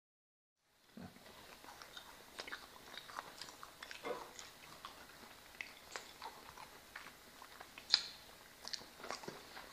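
Silence for about a second, then two people quietly eating pieces of a hazelnut yeast braid by hand: soft chewing and biting with small irregular clicks and taps of fingers and crumbs on plates, and one sharper click near the end.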